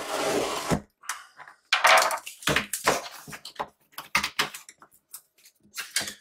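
A knife slitting packing tape on a cardboard shipping box in a loud rasp, then corrugated cardboard flaps scraping and knocking as they are pulled open, in a run of short rasps.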